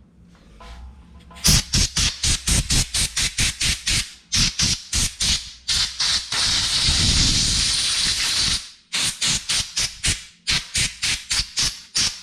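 Rapid scrubbing strokes, about five a second, as the fork's top-cap threads and insert area are brushed clean. The strokes are broken in the middle by a steady spray hiss of about three seconds.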